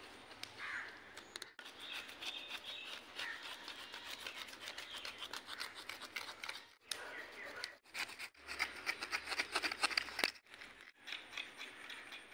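Knives scraping the scales off whole pomfret on wooden chopping blocks: quick, repeated scraping strokes, broken by a few short pauses.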